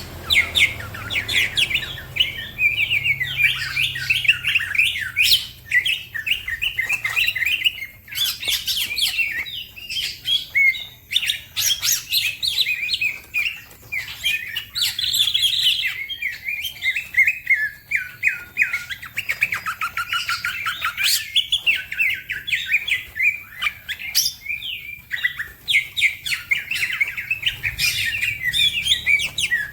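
Green leafbird (cucak ijo) singing a fast, unbroken stream of high chirps and rapid trills.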